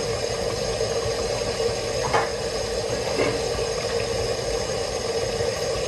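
Water boiling: a steady rushing hiss over a constant low hum.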